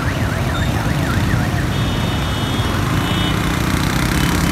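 Traffic on a flooded street: engines running and a steady wash of water noise. Over about the first second a fast siren-like tone sweeps up and down several times a second. A steady high tone sounds briefly near the middle.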